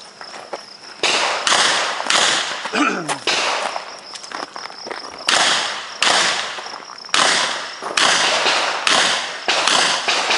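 Smith & Wesson 610 revolver being fired in a stage run: about ten sharp shots in uneven pairs and short runs, each followed by a brief echo off the earth berm.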